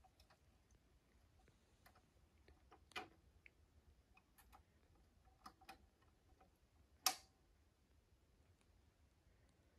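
Bose 360 belt-drive turntable's automatic tonearm return mechanism cycling, giving off faint, separate mechanical clicks: one about three seconds in, a quick pair a little later, and the loudest click about seven seconds in.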